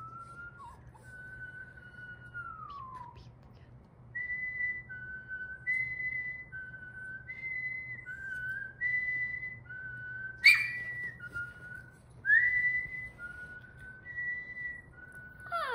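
A man whistling. First a slow rising note falls away, then the whistle alternates steadily between a higher and a lower note, changing about every three quarters of a second. About ten seconds in a sharp click cuts through, the loudest sound here.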